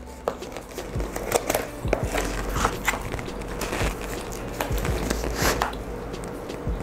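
Cardboard pizza box being handled and opened, its lid and side flaps bent back: an irregular run of scrapes, taps and crinkles of card.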